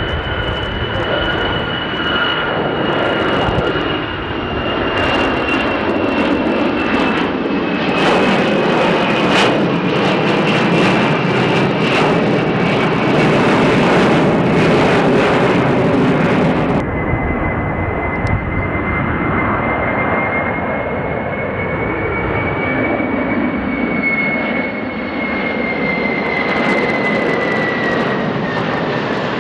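Four-engine Ilyushin Il-76 jet flying low past, its D-30 turbofans giving a loud roar with a high whine that slowly falls in pitch. A little over halfway through, the sound cuts abruptly to a three-engine McDonnell Douglas MD-11 freighter on approach: steady engine noise with a lower whine that drops in pitch near the end.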